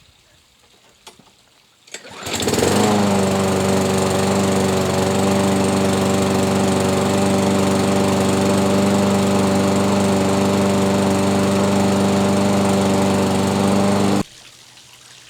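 Yard Machines 158cc walk-behind lawn mower engine starting about two seconds in, rising quickly to speed and then running steadily at full throttle, until it cuts off abruptly near the end.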